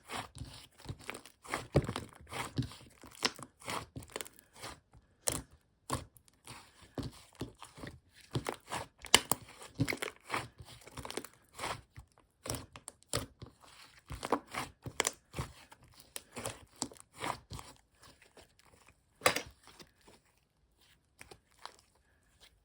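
Irregular crackling and crinkling: a rapid, uneven run of short clicks and rustles that thins out to a few scattered clicks near the end.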